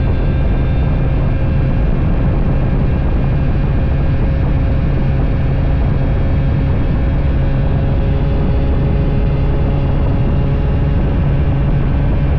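Two-stroke Honda Dash 125 motorcycle engine running steadily while riding, with heavy wind noise on the microphone.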